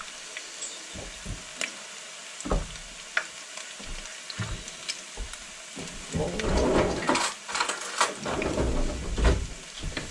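Battered smelt frying in hot oil in a skillet: a steady sizzle with scattered sharp pops and crackles, and a louder stretch of noise a few seconds past the middle. The oil is running a little too hot, crisping the batter on the bottom.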